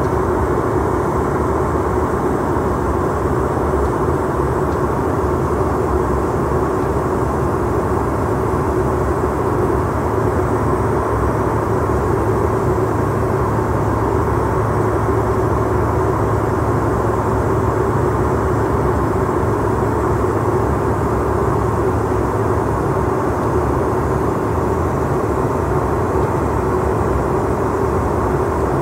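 Steady cabin noise of a Bombardier CRJ-700 regional jet in flight: an even rush of air with a low, constant hum from its two rear-mounted GE CF34 turbofan engines.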